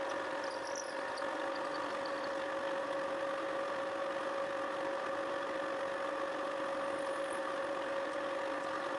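Milling machine running with a 10 mm solid-carbide end mill widening a slot in a round metal part: a steady whine of constant pitch.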